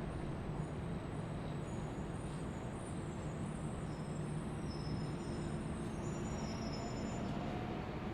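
Steady mechanical rumble with a low hum, joined in the second half by faint high whining tones that step in pitch.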